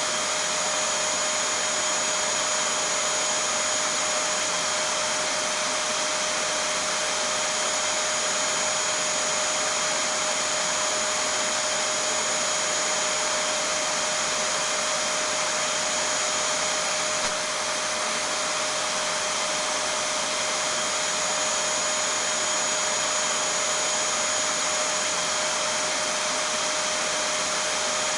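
Vacuum cleaner running steadily: an even rush of air with a constant high whine, unchanging in level and pitch.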